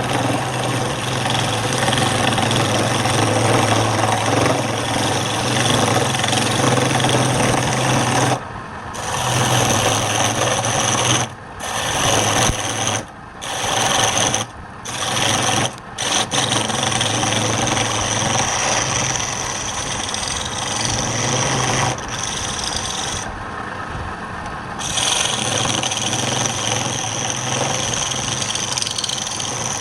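Woodturning lathe running with a cutting tool scraping against the spinning wood over a steady low motor hum. The scraping breaks off briefly several times.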